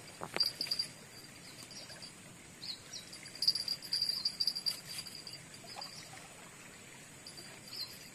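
Insects chirping in a high, thin trill that comes and goes, with a few faint clicks.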